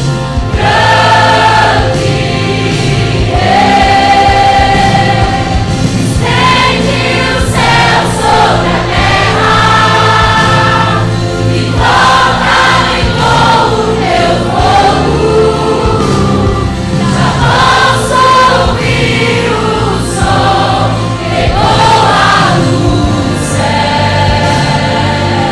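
A choir singing Christian worship music with instrumental accompaniment, the sung melody lines held and moving over a steady backing.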